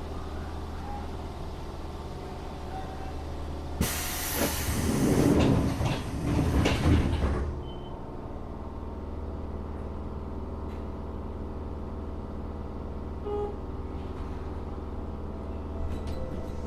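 Tokyo Metro 7000 series electric train car giving a steady electrical hum made of several steady tones. About four seconds in, a loud burst of compressed-air hiss breaks in and lasts about four seconds.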